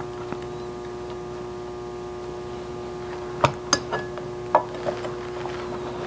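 A steady hum, with a few light metal clicks a little past halfway as the deadbolt's metal mounting plate and its parts are handled against the door.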